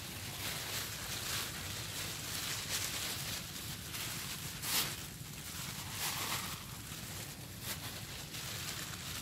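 Intermittent rustling and handling noise: a series of short hissy scrapes, with the loudest one about five seconds in.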